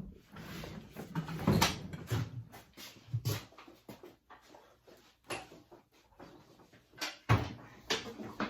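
Irregular knocks, clunks and rustling of things being handled and set down at close range, a dozen or so sharp hits of varying loudness.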